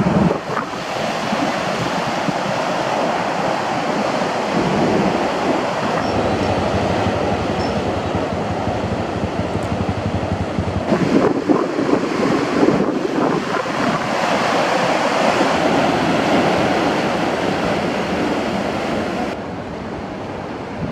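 Ocean surf breaking and washing up a beach, a continuous rush of water that swells louder about halfway through and eases off near the end.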